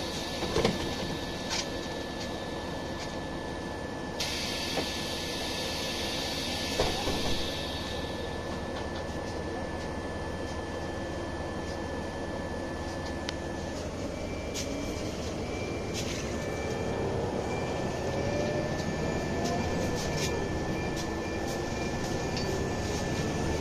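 Inside a Scania OmniLink city bus: the engine runs at a stop with a steady thin whine, a few clunks and a hiss of air in the first several seconds. From about halfway through, the bus pulls away and the engine and drivetrain pitch climbs as it accelerates.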